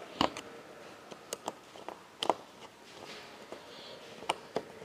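Screwdriver driving the lid screws into a small plastic junction box: about half a dozen light, sharp clicks and taps, scattered and irregular.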